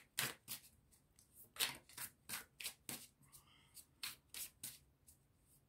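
A tarot deck being shuffled by hand: a run of short, sharp card slaps, irregular at about three a second.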